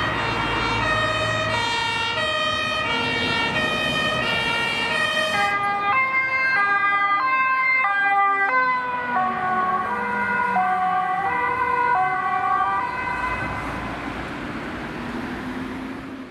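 German two-tone emergency sirens (Martinshorn) on a fire-brigade convoy, alternating high and low notes about every half second. Around six seconds in, a horn with a different pitch takes over, and a third follows a few seconds later. Engine and tyre noise from the passing vehicles run underneath, and the sirens fade near the end.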